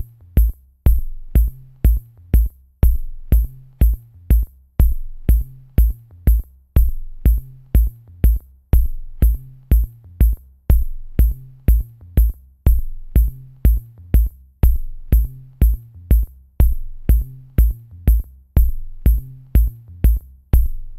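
Electronic background music with a steady drum-machine beat of about two kicks a second, a ticking high hi-hat and a low bass line.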